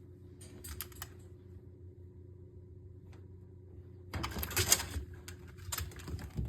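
A dachshund biting and tugging at a meat package: crackly rustling and clicking, brief at first, then a dense burst from about four seconds in over a low steady hum.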